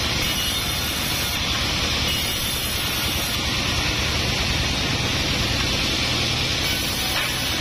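Sawmill band saw running, a steady noisy whir with a low hum underneath that does not let up.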